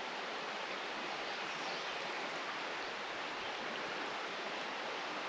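Steady rush of river water flowing in a strong current.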